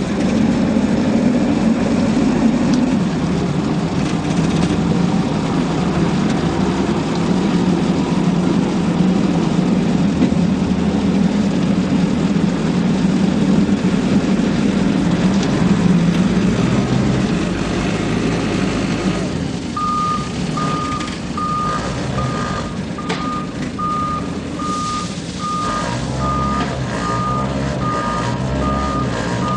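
Self-loading concrete mixer truck's engine running loudly and steadily. About two-thirds of the way through, a reversing alarm starts beeping at an even pace, a little over once a second.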